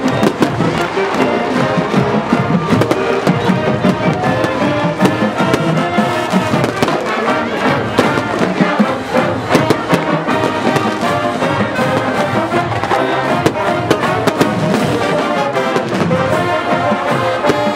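A marching band's brass section playing loudly, with fireworks banging and crackling over the music throughout.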